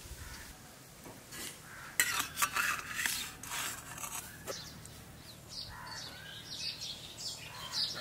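Steel serving spoons scraping and clinking against stainless steel plates and a steel pot as food is served, with the loudest clatter about two to three and a half seconds in and lighter clinks after.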